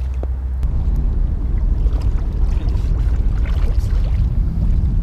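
Wind buffeting the microphone: a loud, low, fluttering rumble, with a few faint clicks over it.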